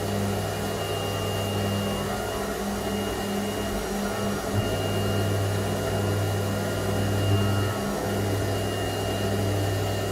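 Converted Grizzly G0704 CNC milling machine running a job in aluminium: the spindle runs steadily while the end mill cuts, over a strong steady hum that dips briefly a few times as the axes change moves.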